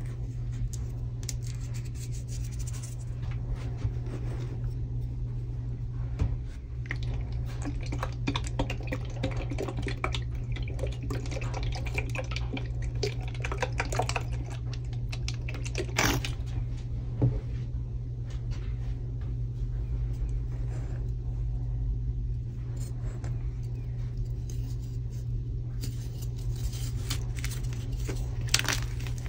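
Hands handling crushed gym chalk and chalk blocks in a tray of powder: scattered small crackles, taps and rustles, busiest in the middle, with a few sharper ticks, over a steady low hum.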